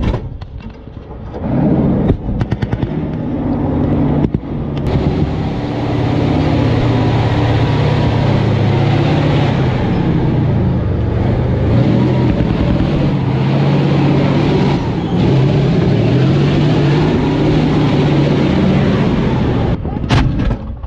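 Tank engine running under load, its pitch rising and falling, with sharp bangs of gunfire and shell blasts at the start and about two and four seconds in. A tank's main gun fires once near the end.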